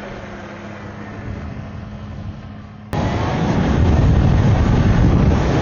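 Electric dirt bike riding along, its motor giving a steady hum with a thin held whine. About three seconds in, a sudden loud rumble of wind on the microphone takes over.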